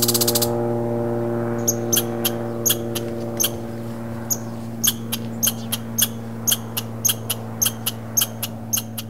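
American red squirrel at a window-sill feeder making a run of short, sharp clicks, about two a second and unevenly spaced, starting a couple of seconds in. A low steady hum fades away beneath them.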